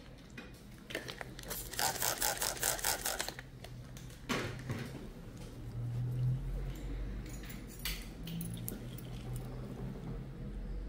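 Handled instruments clicking and scraping: a fast run of small clicks about two seconds in, then one sharp click and a few lighter ones, over a low steady hum.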